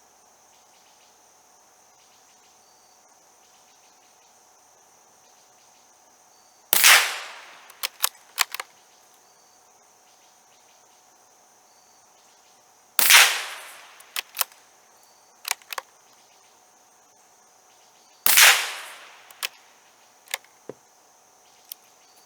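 Three single shots from a Savage B22-V .22 rimfire rifle, about six seconds apart, each a sharp crack with a short tail. After each shot come a few light metallic clicks as the action is worked for the next round. Insects hum steadily in the background.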